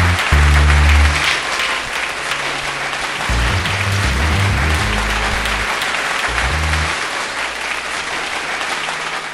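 Congregation applauding, a dense clapping that thins out toward the end, with music playing low bass notes underneath.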